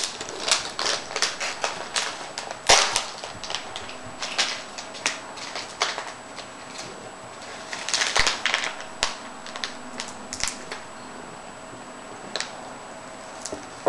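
Cats crunching dried sardine treats: rapid, crisp crackling clicks, thickest in the first six seconds and again around eight to ten seconds in, then only a few scattered crunches.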